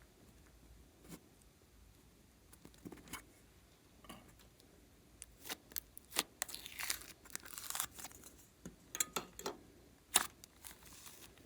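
Slime and makeup items being handled: scattered small clicks and crinkles, with a denser run of crackling in the middle.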